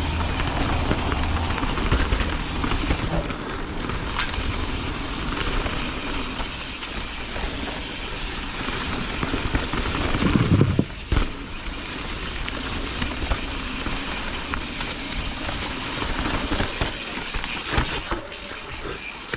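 Canyon Strive enduro mountain bike rolling fast down a dirt forest trail: steady noise of the tyres on dirt with occasional sharp knocks. About ten seconds in, a brief, louder rumble as the wheels cross a wooden plank bridge, cutting off suddenly.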